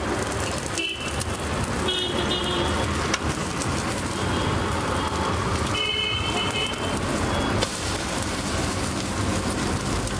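Egg omelet sizzling in a hot iron pan over a gas burner, under street traffic noise. Short vehicle horn toots sound about a second in, around two seconds and again around six seconds.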